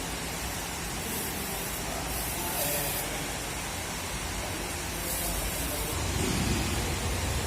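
Hissing bursts of spray or air, three of them, the second lasting about a second, over a steady low workshop rumble that grows a little stronger near the end.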